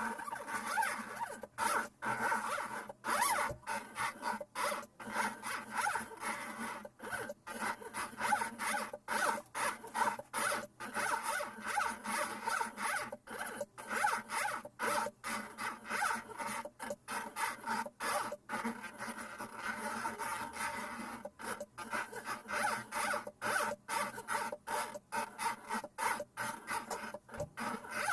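NEMA 17 stepper motors of a homemade belt-driven CNC pen plotter running its first trial drawing. They make a buzzing whine, broken into short moves by frequent brief pauses.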